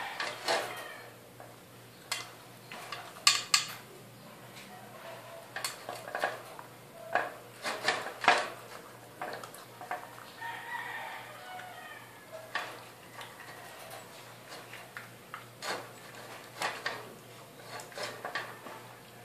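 Belgian Malinois puppy eating dry kibble from a plastic slow-feeder bowl: irregular clicks and clatters of kibble and teeth against the plastic. A few louder knocks come about three and eight seconds in.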